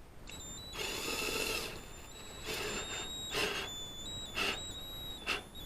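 A power drill turning a thread tap into a drilled-out bolt hole in about five short bursts, its motor whine shifting in pitch with the trigger.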